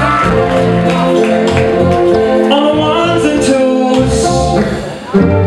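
Live band playing, with a trumpet and a singing voice over the accompaniment. The music drops briefly about five seconds in and then comes back loud.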